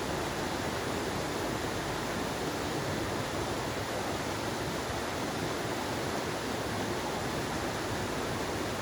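Steady rush of a clear rainforest stream flowing over rocks, an even wash of water noise with no bird calls standing out.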